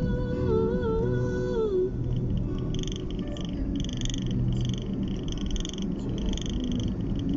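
High-pitched pulsing chorus of calling animals, about two pulses a second, heard over the low rumble of a car on the road. A musical held note fades out in the first two seconds.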